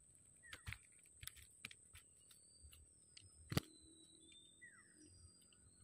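Quiet handling sounds as a freshly caught mullet is unhooked by hand: a few soft clicks and taps, with one sharp click a little past halfway.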